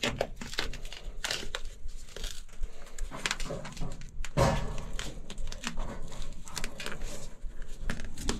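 Foam insulation tape being wrapped by hand around a TXV sensing bulb on a copper suction line: irregular crinkling and rustling with small sharp crackles.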